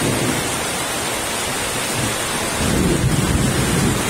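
Heavy rain pouring down in a violent storm, a dense steady hiss, with a low rumble swelling up about two and a half seconds in.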